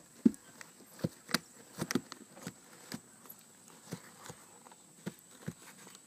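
Irregular soft taps, knocks and scratches from African grey parrot chicks shuffling about on paper towels in a plastic tub.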